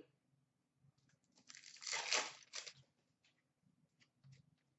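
A 2015-16 Upper Deck Series 2 hockey card pack wrapper being torn open: one rustling rip about a second and a half in, lasting about a second, followed by a few faint crinkles and clicks.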